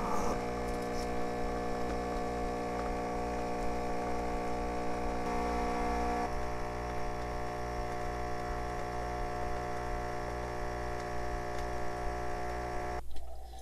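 Tassimo pod coffee machine's pump humming steadily as it dispenses coffee into a mug. The hum shifts slightly about six seconds in and cuts off near the end, as the brew finishes.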